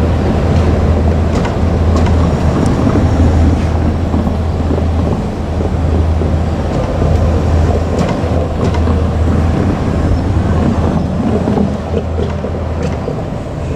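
JR Kyushu KiHa 200 diesel railcar running, a steady low drone with a few scattered sharp clicks.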